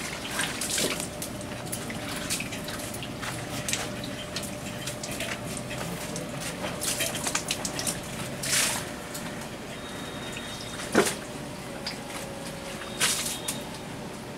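Outdoor lane ambience: steady background noise with scattered small clicks and knocks, and a few louder clatters about 8 seconds in, 11 seconds in and 13 seconds in.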